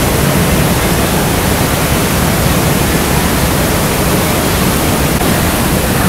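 Waterfall in flood after heavy cyclone rains: a loud, steady rush of falling water.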